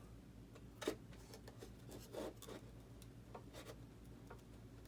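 Faint scraping, rubbing and light clicks of hands working a part into the exhaust of a foam RC model jet, with a sharper tap about a second in.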